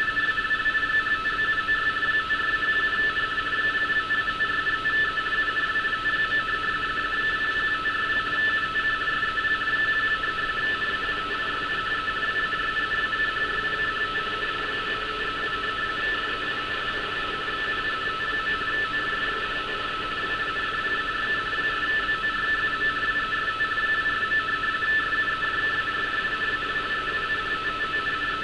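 Radioteletype (RTTY) signal from a Target/NASA Marine HF3 shortwave receiver: two close steady tones, one slightly higher than the other, switching back and forth rapidly over radio hiss. It is a data transmission of a coastguard navigational warning being decoded as it arrives.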